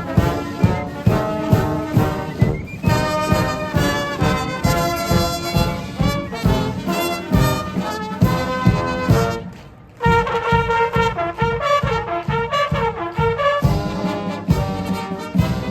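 Military brass band playing a march, trumpets and trombones over a steady bass drum beat. The music drops away briefly about ten seconds in, then comes back with a new phrase.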